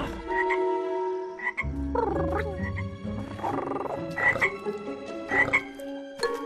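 Cartoon frog croaking, a series of low, rough croaks.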